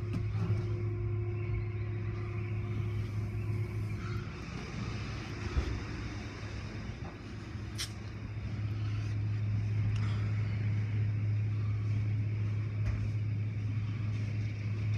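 Automatic tunnel car wash heard from inside the car's cabin: water spraying and cloth wash strips swishing and slapping over the car body, over a steady low hum.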